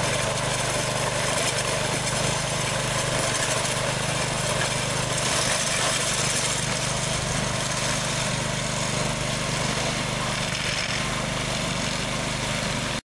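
Small engine of a Janick 1500 walk-behind wire trencher running steadily while its carbide-toothed blade cuts a trench through a gravel driveway. The sound cuts off suddenly near the end.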